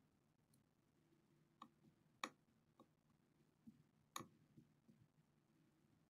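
Near silence with a handful of faint, short clicks, two of them sharper: a small hand tool touching the laptop motherboard as the solder mask is scraped off the charging-port pads and tracks.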